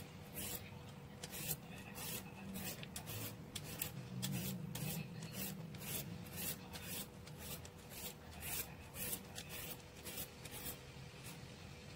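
A julienne peeler scraping down a fresh cucumber to shred it, in quick repeated strokes about two to three a second, which stop near the end.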